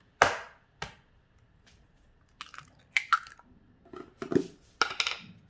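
An egg being cracked and added to a mixing bowl: a sharp knock about a quarter second in, a smaller one just after, then scattered short crackles, taps and squishes.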